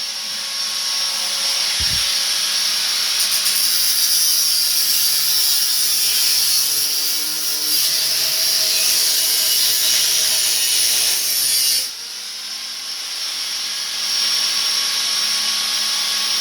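Angle grinder cutting through exhaust pipe, a loud, continuous high-pitched screech. It drops away about twelve seconds in and picks up again a couple of seconds later.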